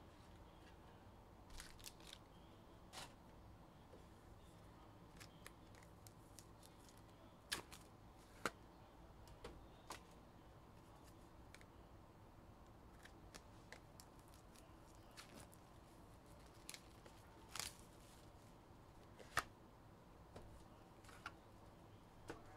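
Near silence broken by irregular, sharp clicks and taps, about a dozen, with a few much louder than the rest.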